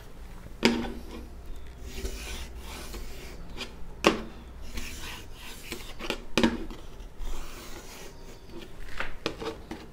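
Chalk scraping across a chalkboard as a line is drawn along a wooden board ruler, with a few sharp knocks of the ruler or chalk against the board.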